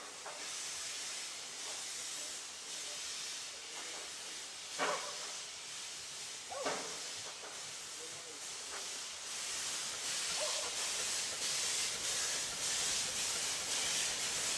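Steam hissing steadily from a standing Vale of Rheidol narrow-gauge steam locomotive, a little louder from about ten seconds in.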